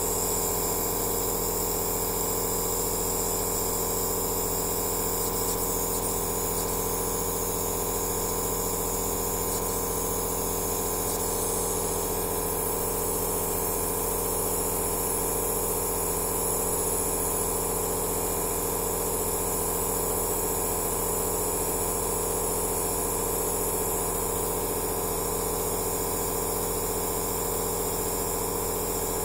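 Nebulizer (aerosol therapy machine) compressor running steadily: a constant hum with several steady tones under an even hiss of air.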